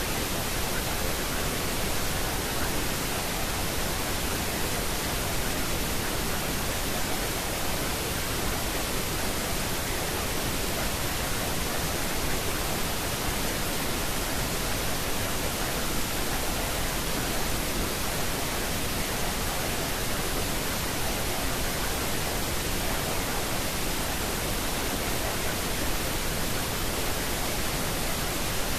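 Steady, unchanging noise hiss spread evenly from deep rumble to high hiss: the masking noise bed of a subliminal affirmation recording.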